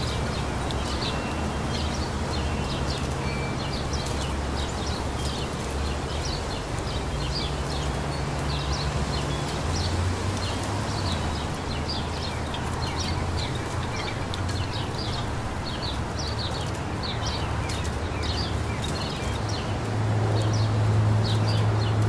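A chorus of small birds chirping in many short, high notes, several a second, over a steady rustle of a light breeze through the trees, with a low hum underneath.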